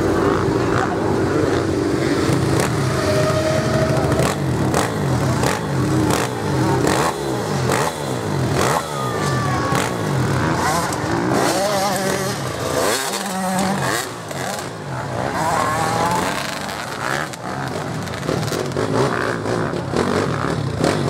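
Several motocross bikes' engines revving up and down, their pitches rising and falling over one another.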